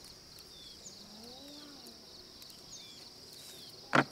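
Open-field ambience: a steady high-pitched drone with small birds giving short, falling chirps every second or so. Near the end comes one short, sharp thud.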